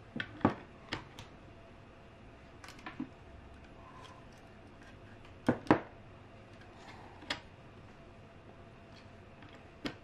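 Sharp plastic clicks and knocks, about eight in all and the loudest in two close pairs about half a second and five and a half seconds in: a small USB LED light being pushed into the USB port of a plastic battery adapter, with hands handling the housing.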